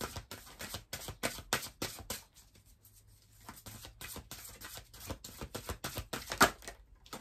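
A deck of large oracle cards shuffled overhand by hand: a quick patter of card slaps that thins out for about a second, two seconds in, then picks up again, with one louder slap near the end.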